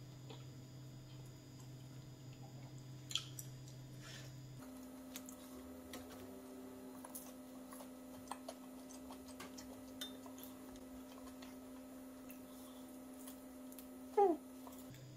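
Quiet eating sounds: small clicks of wooden chopsticks against a ceramic noodle bowl, and soft mouth sounds of slurping and chewing. There is a sharper click about three seconds in, and a short falling squeak near the end.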